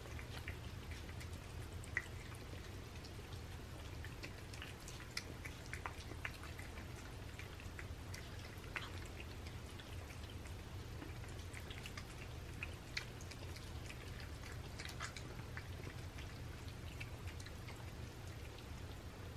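Several cats eating canned tuna cat food from plates: faint, irregular wet smacking and chewing clicks over a low steady hum.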